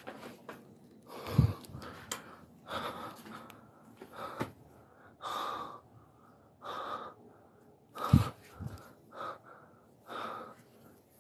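A person breathing heavily close to the microphone, short breaths about once a second, with two dull knocks, one about a second in and one later on.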